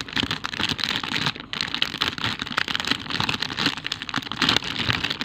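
Plastic packaging crinkling and rustling in the hands, a dense run of irregular crackles and clicks.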